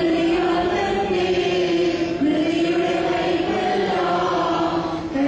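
Church choir singing a slow hymn in unison, in long held notes. The phrases break about two seconds in and again near the end.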